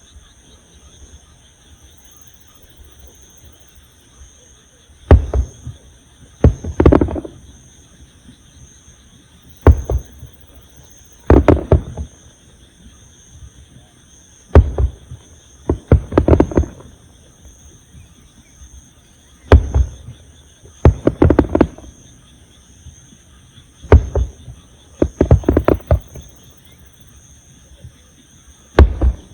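Aerial firework shells bursting: a series of loud booms every one to three seconds, some in quick pairs or clusters, starting about five seconds in.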